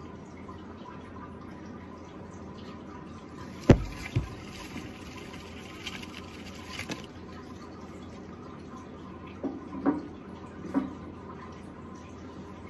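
Two sharp knocks about half a second apart, then a few softer taps, over a steady low hiss, in a plastic enclosure holding an African bullfrog.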